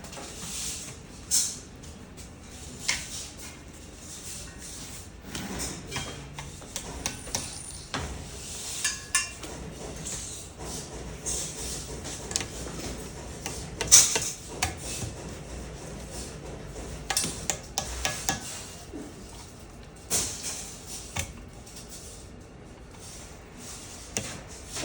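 Metal parts of a microwave stand knocking and clinking together during assembly, with scattered sharp taps and some rustling.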